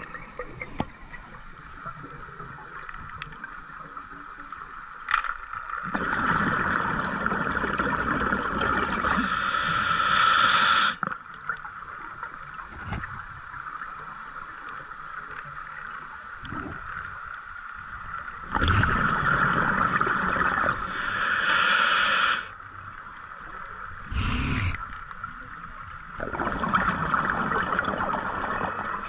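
Scuba diver breathing through a regulator underwater: three loud breaths, each a rush of gurgling exhaled bubbles and regulator hiss lasting a few seconds, with quieter steady water noise between.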